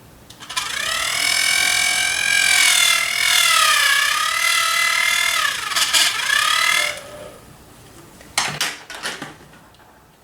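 An electric fan's spinning blades buzzing against a finger held into them, giving a loud, wavering, siren-like tone that dips in pitch as the blades slow, then stops, followed by a few sharp clicks.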